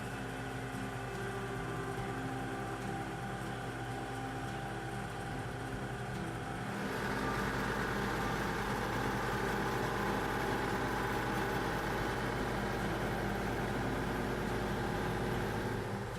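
Case IH 9380 tractor's diesel engine running steadily. It gets louder and brighter about seven seconds in and holds there, then eases back near the end.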